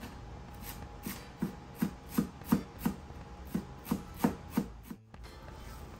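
Chef's knife chopping fresh cilantro on a wooden cutting board: a run of about ten quick knife strikes, roughly three a second, starting about a second in and stopping abruptly near the end.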